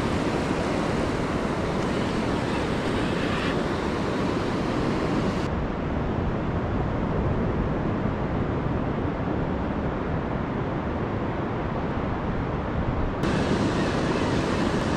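Steady rush of surf breaking on the beach, with some wind noise on the microphone. The sound goes duller for several seconds in the middle.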